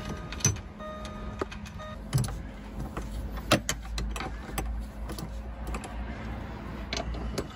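Jaguar XK electric seat motor running for about five seconds as the power seat slides forward on its runners, with several sharp clicks and knocks from the seat bolts being fitted.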